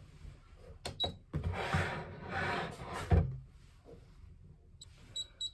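Rustling and rubbing of clothing and fur as a small chihuahua is carried and handled at a counter, with two light knocks about a second in and a thump about three seconds in. Three faint short high beeps come near the end.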